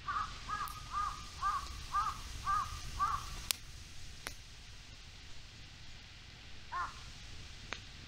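A crow cawing: a quick series of about seven caws, roughly two a second, then a single caw near the end. A few sharp pops sound in between.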